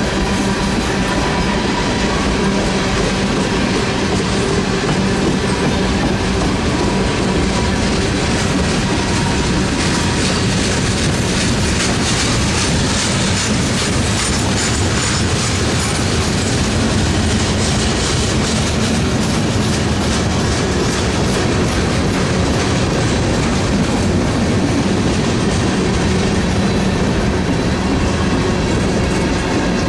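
A train rolling along the rails, loud and steady, with a low hum held under the noise of the wheels.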